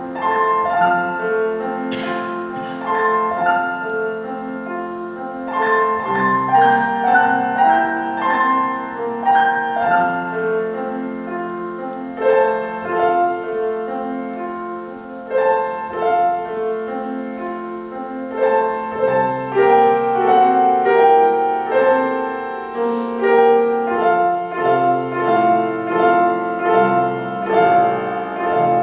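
Solo piano playing a melody over chords and low bass notes, in phrases that swell and ease.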